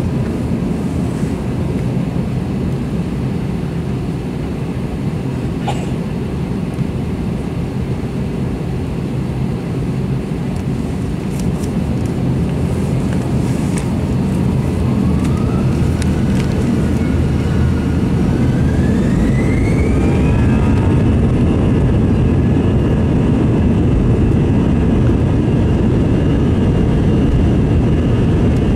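Airbus A321 turbofan engines heard from inside the cabin. A steady low rumble is joined about halfway through by a rising whine that climbs and then levels off into a steady higher tone as the engines spool up to takeoff thrust and the aircraft starts its takeoff roll.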